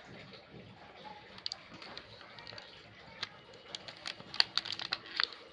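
Plastic shrink-wrap crackling and metal aerosol body-spray cans clicking as they are pulled out of a shrink-wrapped pack, with a quick run of sharp clicks about four to five seconds in.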